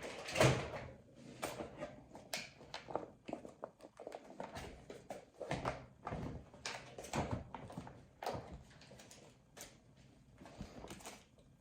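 Packaged products being handled and swapped: irregular rustling, clicks and light knocks of boxes and packaging, the loudest about half a second in.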